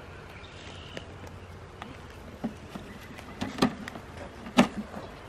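Wooden hive frames and a wooden queen cage knocking and scraping together as gloved hands wedge the cage between the frames: a few short sharp knocks, the loudest two about three and a half and four and a half seconds in.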